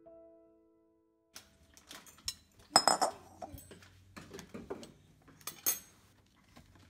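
A piano note fades out in the first second. Then a metal fork and a spatula are set into an empty glass mixing bowl, clinking sharply against the glass with a bright ring. The loudest clinks come about three seconds in and again near the end.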